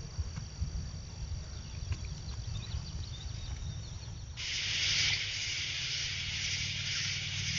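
Low rumble of wind on the microphone under a faint steady insect trill; a little over four seconds in, a much louder insect chorus cuts in abruptly as a high, swelling and fading hiss.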